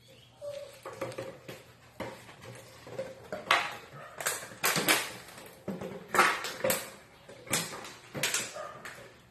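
Puppies playing: a scattered run of short, sharp yips and clattering knocks, thickest in the second half.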